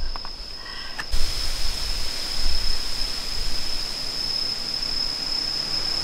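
Night ambience: insects trilling steadily at one high pitch. About a second in, an even rushing hiss sets in suddenly under the trill.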